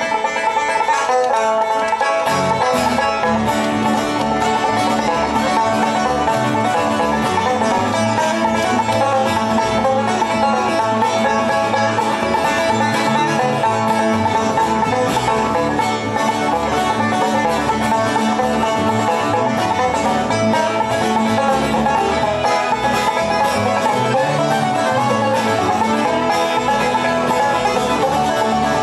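Live acoustic bluegrass band playing an instrumental passage without singing: banjo picking over strummed acoustic guitars and bass, at an even beat.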